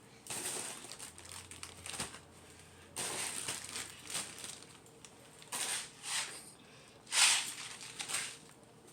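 Crinkling and crumpling, as of snack wrappers being handled, in four short bursts with the loudest about seven seconds in.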